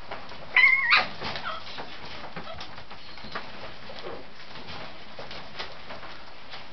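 Scottish terrier puppies in a pen: one sharp, high puppy squeal about half a second in, then faint whimpers and the small clicks and scuffles of the litter moving about.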